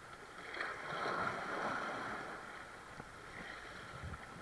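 Seaside ambience of waves washing against the shore and wind: a soft rush of noise that swells about a second in and then eases.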